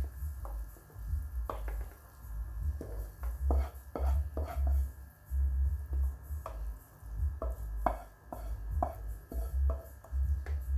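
Wooden spoon scraping and knocking against a frying pan as cooked minced beef is pushed out into a bowl: a run of irregular knocks and scrapes over dull low thumps.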